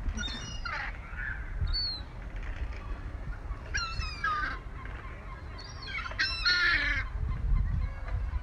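Gulls calling in bouts of harsh, strained cries: one about half a second in, a brief one near two seconds, another around four seconds and a longer one around six and a half seconds, from birds competing over thrown food.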